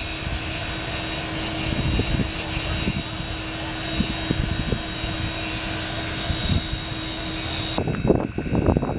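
Union Pacific 844, a 4-8-4 Northern steam locomotive, standing with steam up: a steady hiss and rumble with a steady hum and a few light knocks. The high hiss cuts off suddenly shortly before the end.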